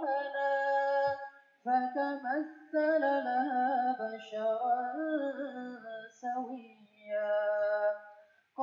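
Background music with a woman singing held, wavering notes in phrases broken by short pauses.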